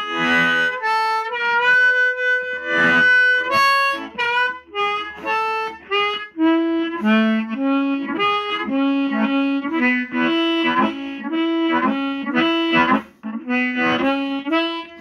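Diatonic harmonica played through a Hohner Harp Blaster microphone and a Roland Cube Street amplifier, with a quite raw, amplified tone. It plays a blues-style run of held notes and chords, with a brief dip about two seconds before the end.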